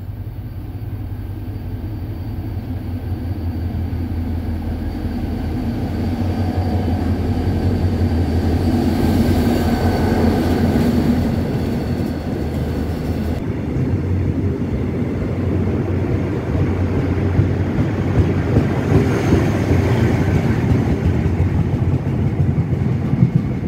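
Diesel-electric locomotive and its passenger coaches rolling past the platform: a steady low engine drone that grows louder over the first several seconds, with sharp clicks near the end.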